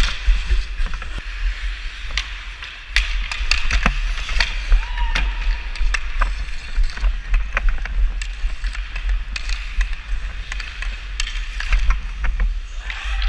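Ice hockey skate blades scraping and carving on the ice, with frequent sharp clicks of a stick tapping the puck, over a constant low rumble.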